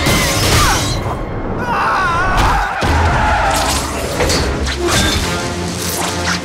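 Action-film sound mix: a sudden crash, then people screaming about two seconds in, with further hits and thuds under a dramatic film score.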